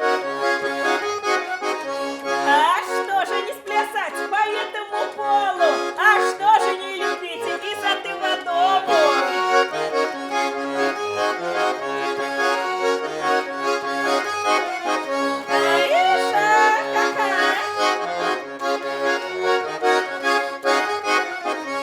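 Russian garmon (button accordion) playing a chastushka tune on its own: a melody in held chords over short repeated bass notes.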